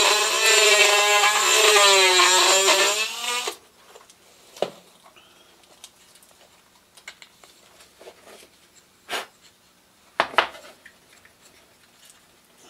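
Handheld rotary tool running with a high whine whose pitch wavers as it bites, grinding out a hole in a small wooden sign base. It cuts off about three and a half seconds in, followed by scattered light clicks and a few knocks as parts are fitted by hand.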